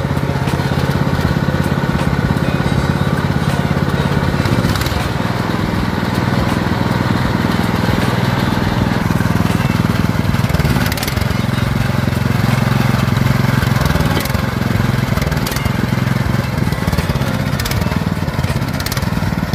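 A 10 hp single-cylinder air-cooled petrol engine running steadily, with fast regular firing pulses. Its note shifts a little about five seconds in and again around eleven seconds.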